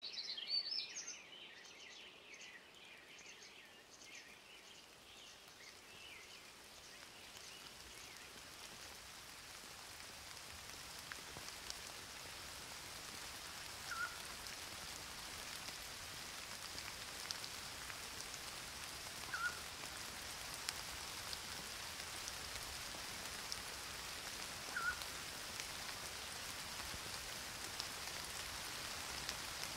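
Steady rain falling on garden foliage, fading in over the first several seconds to an even patter with scattered single drops. A bird chirps a few times at the start and three more times later, about five seconds apart.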